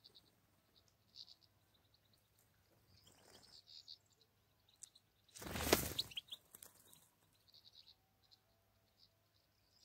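European goldfinches giving short, high chirping calls. About five and a half seconds in, a loud swish lasting under a second as a clap net is sprung over the birds.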